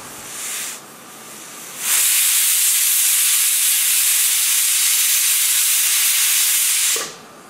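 Prestige stovetop pressure cooker's weight valve releasing steam: a short puff, then about two seconds in a loud, steady, high hiss, the cooker's 'whistle', that lasts about five seconds and cuts off suddenly. The whistle signals that the cooker has come up to full pressure.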